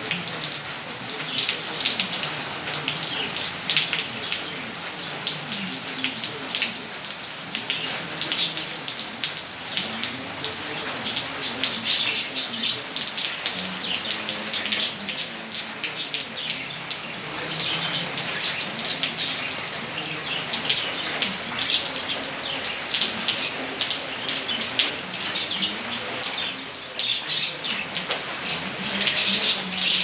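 Steady rain, a dense patter of drops on leaves and hard surfaces.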